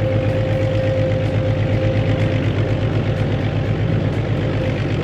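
Excavator's heavy diesel engine running steadily at a low rumble, with a faint steady whine above it.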